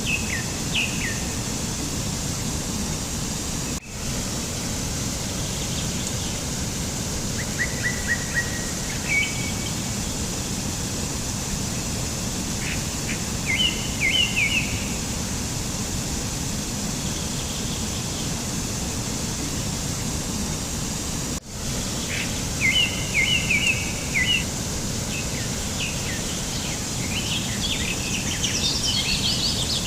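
Small birds chirping in short, quick bursts of several notes, scattered through and busiest near the end, over a steady background rush. The background cuts out for an instant twice.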